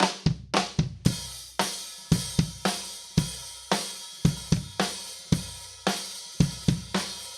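Drum kit played in a steady groove that starts abruptly: bass drum, snare and hi-hat/cymbals, the bass drum sounding through a Roland TM-1 trigger module that swaps its sound for a sample.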